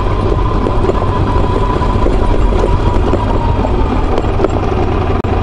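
Ducati motorcycle engine running steadily while the bike rides along a gravel track, heard from a camera mounted on the bike.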